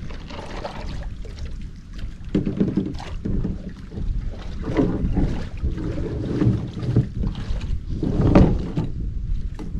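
Water sloshing and a kayak knocking and shifting as a dog scrambles out of it, in irregular surges with the loudest about eight seconds in, with wind on the microphone.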